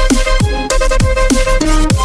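Electronic music soundtrack with deep kick drums on a fast steady beat over sustained synth tones.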